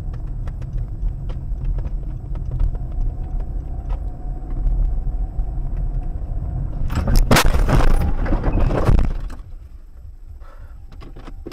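Road and engine rumble inside a moving car, then about seven seconds in a loud car crash lasting about two seconds: a collision with crunching and rattling that knocks the dashcam loose. After it the rumble is much quieter.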